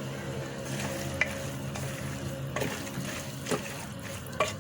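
Spoon stirring chopped tripe with olive oil, spices and preserved lemon in a pressure cooker pot. There is a steady scraping, sizzling-like hiss and a few light clicks of the spoon against the pot.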